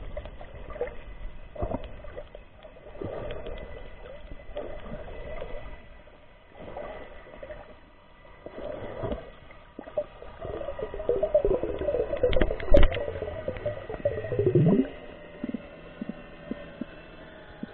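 Underwater sound of water movement and gurgling air bubbles, muffled. Partway through, a longer warbling bubbling stretch ends with a downward sweep in pitch. A sharp knock comes in the middle of that stretch.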